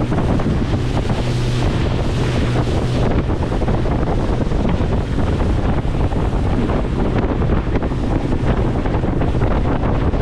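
Aluminium fishing boat running at speed: wind buffets the microphone over the steady drone of the Yamaha outboard and the rush and slap of water along the hull.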